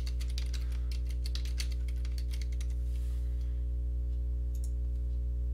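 Typing on a computer keyboard: a quick run of key clicks for about three seconds, then a couple of mouse clicks near the end. A steady low electrical hum runs underneath.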